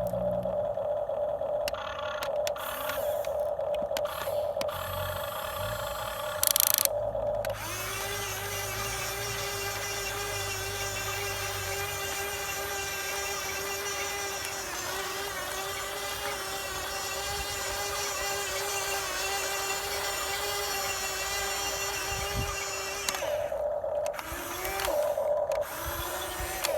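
Small electric motor of a radio-controlled model excavator whining steadily. About eight seconds in, its pitch drops and holds lower for about fifteen seconds, then goes back up, with a few clicks near the start and end.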